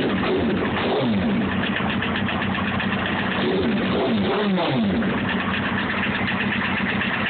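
Honda CBR954RR inline-four engine idling with a quick, even ticking knock over the hum, blipped up and back down about a second in and a couple more times past the middle. This is the knocking noise whose cause the owner does not know.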